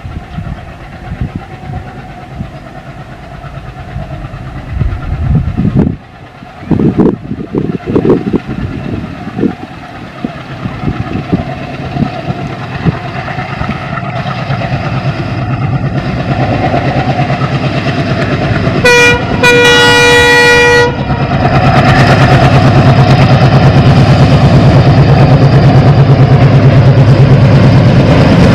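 Twin WDM 3D ALCO diesel locomotives hauling an express, their engines chugging and growing steadily louder as they approach. About two-thirds of the way in the air horn sounds, a short toot then a blast of about a second and a half, after which the engines' heavy chugging runs loud and steady.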